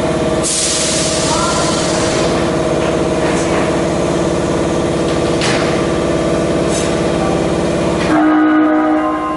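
Osaka Municipal Subway 30 series train's horn held for about eight seconds: a steady, buzzy multi-tone blast with a rattling edge, the abnormal horn noise this car is known for. It then switches abruptly to a cleaner steady tone near the end.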